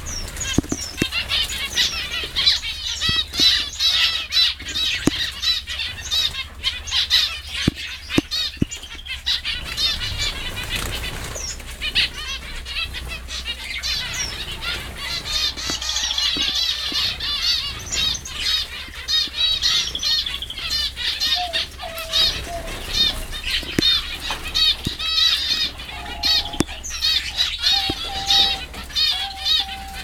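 A mixed flock of aviary finches, zebra finches among them, keeping up a dense chatter of many overlapping short, high chirps, with wings fluttering and sharp little clicks as birds fly and land among the perches.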